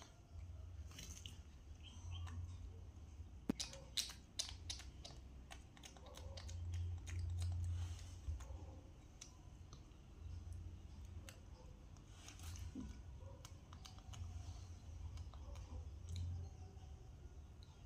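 Faint eating sounds: chewing, with scattered small clicks and taps of hands and fingers picking at food on a porcelain plate. The clicks come thickest about four seconds in, over a low steady rumble.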